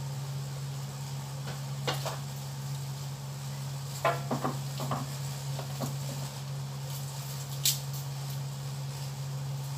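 Scattered kitchen clatter: a few separate knocks and clicks of utensils and cookware being handled, the sharpest about two, four and near eight seconds in, over a steady low hum.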